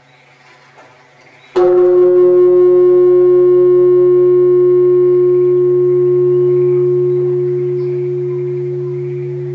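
A large Japanese temple bell (bonshō) struck once about a second and a half in, then ringing on in a long, deep hum that wavers slightly and slowly fades.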